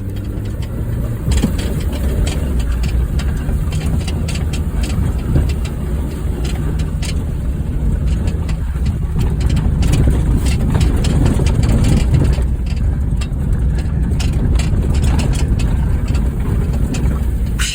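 A Honda Fit's four-cylinder engine running steadily as the car drives over a rough dirt road, with frequent knocks and rattles from the body and suspension jolting over bumps and stones.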